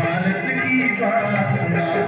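Recorded instrumental music from a Hindi film song's intro, with sustained notes under a melody line.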